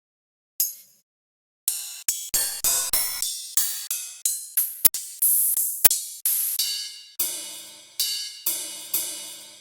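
Electronic dubstep-style beat: one short hit, then from about two seconds in a fast run of sharp, noisy, cymbal-like hits, with a low buzzing tone joining near the end. It cuts off suddenly.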